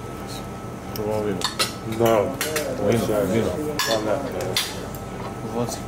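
Fork and knife clinking and scraping on a ceramic plate, with several sharp clinks between about one and five seconds in. Voices of people talking at nearby tables run underneath.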